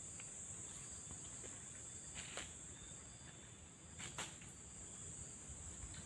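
Faint, steady high-pitched chorus of insects trilling, with a couple of brief soft knocks or rustles about two and four seconds in.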